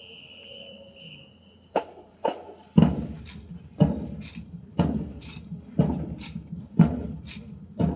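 Sharp percussive strikes in a steady beat of about one a second, each with a short ring, beginning after a faint high steady tone stops early on.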